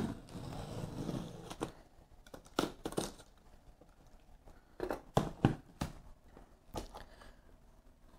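Box cutter slicing through the taped seam of a cardboard box for about a second and a half, then a handful of scattered cardboard knocks and rustles as the flaps are lifted open.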